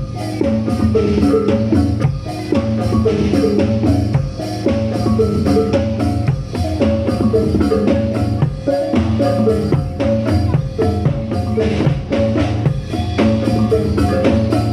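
Reog Bantul accompaniment music: tuned gamelan-style percussion plays fast repeated interlocking notes over steady drum strokes.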